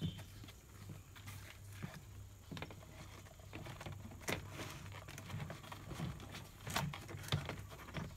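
Scattered light knocks and clicks as a Daihatsu Xenia's plastic door trim panel is pressed into place on the door by hand.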